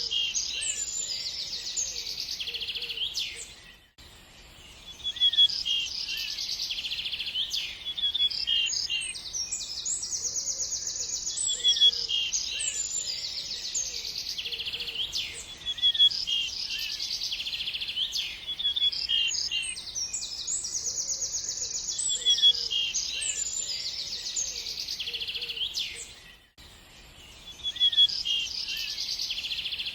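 Birdsong: several birds chirping and trilling high-pitched, with the same phrases recurring every few seconds and a few fainter, lower calls underneath. The sound drops away briefly twice, near 4 s and near 26 s.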